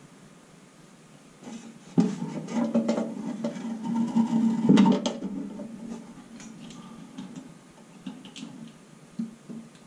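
Handling noise from a backup-light wiring connector being worked and plugged back in behind a pickup's rear bumper: a sharp knock about two seconds in and another near the middle, with a low steady hum between them.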